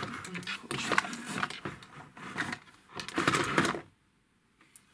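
Clear plastic cosmetic organizers and the makeup brushes in them being set down and shifted on a tabletop: a run of small clicks and rattles, loudest a little over three seconds in, stopping about four seconds in.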